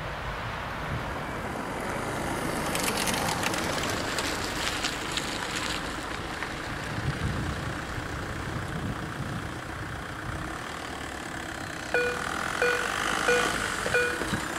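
Passing road traffic, then about twelve seconds in a level crossing's electronic warning sounder starts. It gives short repeated tones, about one and a half a second, as the red lights begin flashing, the sign that a train is approaching.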